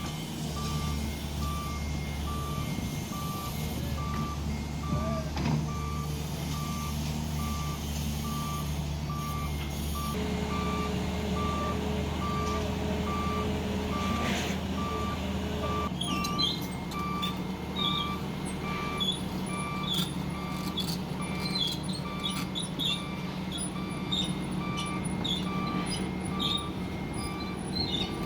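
A heavy-equipment reversing alarm beeping at a steady rate over a running diesel engine. The engine note changes about ten seconds in and drops back a few seconds later, and after that some higher squeaks and clicks from the working machinery join in.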